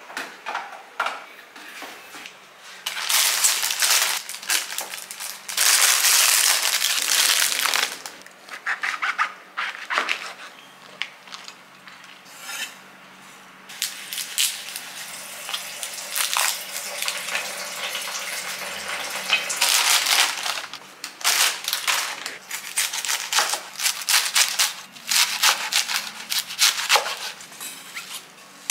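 Kitchen food preparation: plastic bags and wrapping crinkling in long loud stretches, broken by sharp knocks of a cleaver on a wooden cutting board as vegetables are cut.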